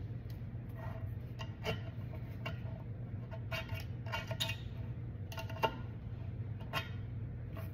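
Kitchen knife blade prying at a partly cut metal can lid, making short irregular clicks and scrapes of steel on steel, busiest around the middle, over a steady low hum.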